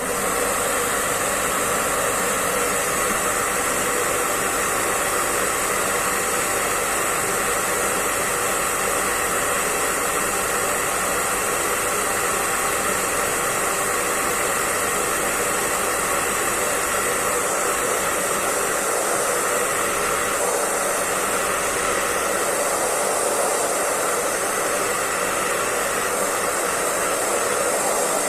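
Electric hair dryer running steadily: a constant rushing hiss of blown air, with the even whine of its fan motor underneath.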